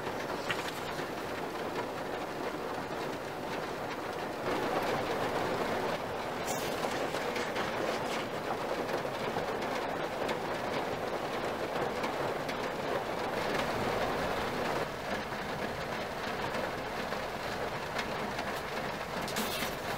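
Heavy rain falling steadily on the car roof, heard from inside the cabin. It gets louder about four seconds in and eases again about fifteen seconds in.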